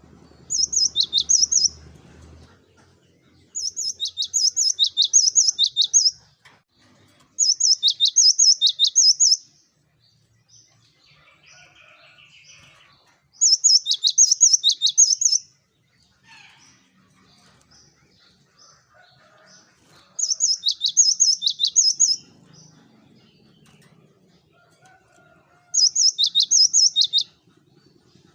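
Cinereous tit (gelatik batu) singing in six short bursts of quick, high, downward-sweeping notes. Each burst lasts about two seconds, with pauses of a few seconds between.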